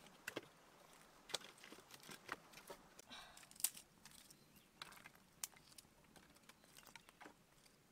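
Scattered sharp clicks and light knocks of dry sticks being handled on stones, and a small, freshly lit stick fire.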